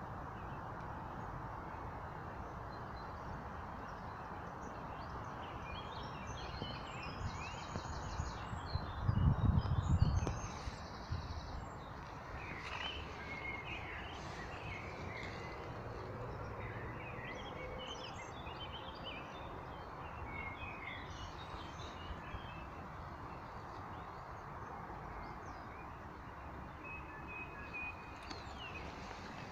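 Small birds chirping and calling over a steady outdoor background hiss, with a brief low rumble about nine seconds in.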